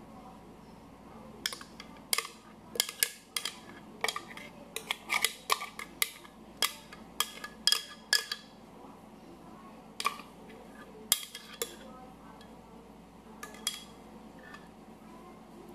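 Irregular sharp glass clinks and knocks, thick at first and sparser later: a glass blender jar knocking against a glass dish as thick cupuaçu cream is poured out of it.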